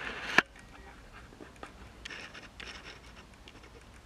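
Faint handling noise: a brief rustle ending in one sharp click, then low scrapes and a few light ticks.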